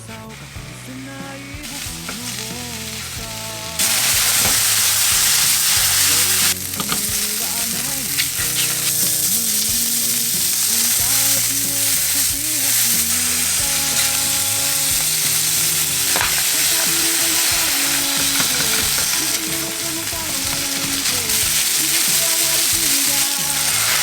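Food sizzling as it fries in a hot pan and is stirred, the sizzle jumping much louder about four seconds in and staying strong. A song plays underneath.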